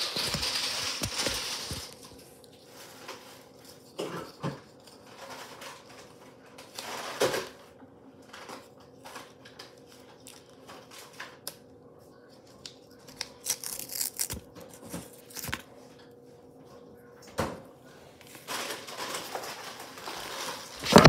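Packaging being unboxed by hand on a table: scattered light taps and clicks, with bursts of paper or plastic rustling at the start, once around the middle and again near the end. A faint steady hum runs underneath.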